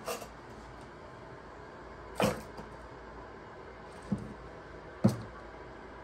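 Four short knocks and clatters of plastic storage drawers and a shelf unit being handled. The one about two seconds in is a little drawn out, and the loudest comes about five seconds in.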